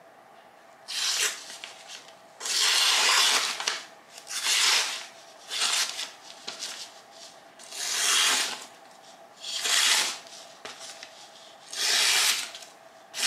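About eight rasping rubbing strokes, each half a second to a second long, coming at uneven intervals of one to two seconds.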